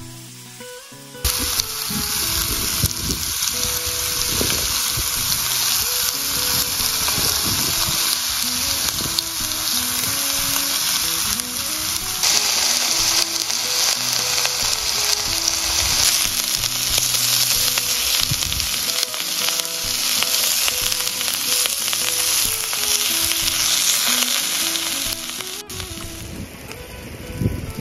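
Pork slices and sliced vegetables sizzling loudly on a hot electric grill pan. The sizzle comes in suddenly about a second in, holds steady, and drops away near the end.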